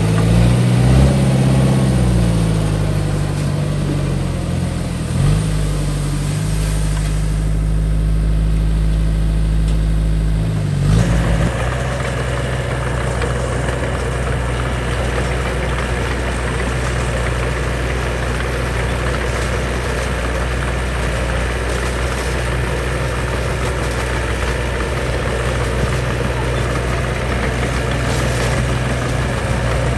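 Diesel engine of heavy construction machinery running under varying load, its note rising and falling for about the first ten seconds. It then changes abruptly to a steady drone.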